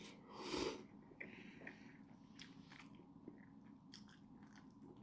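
A person slurping a mouthful of noodles once, about half a second in, then chewing with small soft clicks.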